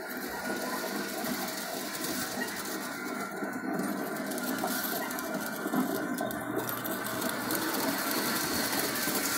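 Steady mechanical whirring from the small electric motors of a running Christmas village display.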